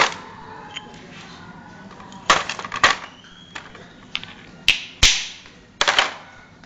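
Pieces of polished marble clacking against each other or on a hard surface: about half a dozen sharp, irregularly spaced knocks, each with a brief ring.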